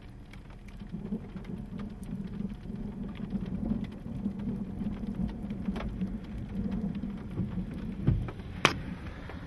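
Raindrops tapping on a car's windshield, heard from inside the car over a steady low drone. A low thump and a sharp click come near the end.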